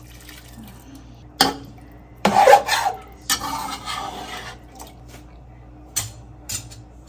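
Pots and utensils being handled in a home kitchen: a sharp knock, then a louder clatter, a stretch of hissing, rubbing noise, and two light clicks near the end.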